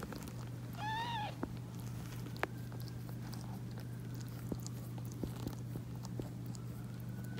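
A short, high, arching mew about a second in, from a newborn kitten or its calico mother, over a steady low hum, with scattered small clicks as the mother cat licks her newborn kitten.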